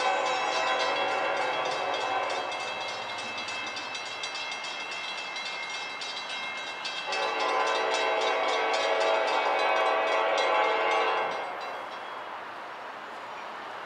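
Florida East Coast Railway freight locomotive's air horn sounding two long blasts, a chord of several tones, for a grade crossing: the first dies away about two seconds in, the second sounds from about seven to eleven seconds in.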